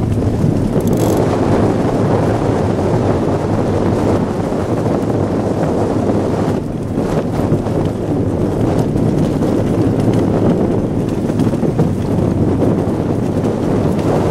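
Wind rushing over the microphone aboard a two-seater iceboat sailing fast over the ice: a loud, steady rush with a short lull about six and a half seconds in.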